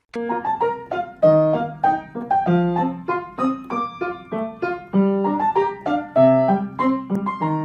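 Background piano music: a quick, light tune of short struck notes, several a second.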